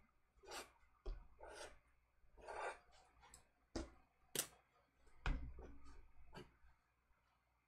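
Black Sharpie marker scratching across paper in short strokes about a second apart, then a few sharp clicks and a knock as markers are put down and picked up on the wooden table.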